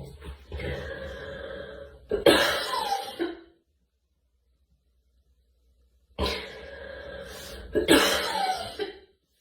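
A girl coughing in two bouts separated by a few seconds of quiet. Each bout begins with a drawn-out breathy sound and ends in one loud, hard cough.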